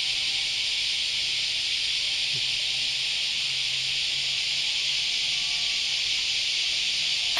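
A steady, high-pitched insect chorus that keeps up without a break.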